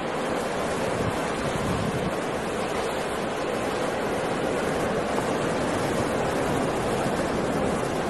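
Rough, stormy sea surf in strong wind: a steady, even rush of breaking waves, with no single crash standing out.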